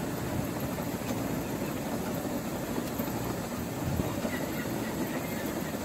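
Electric wheelchair driving up over interlocking paving stones: a steady rumble and rattle from the wheels on the pavers and the drive motors. The reduction gearboxes run without grinding on the climb.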